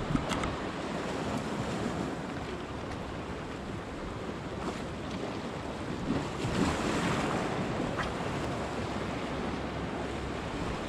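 Sea waves washing against a rocky shore, with wind on the microphone; one wave surges louder about six and a half seconds in.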